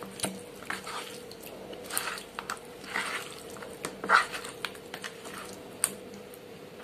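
Hand mixing raw prawns in a spice marinade with lime juice in a plastic tub: irregular wet squelches and soft clicks as the prawns are turned and rubbed in the paste, the loudest about four seconds in.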